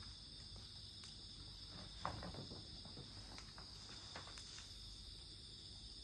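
Campfire crackling faintly with scattered sharp pops, and a louder cluster of crackles about two seconds in, over a steady high chirring of insects.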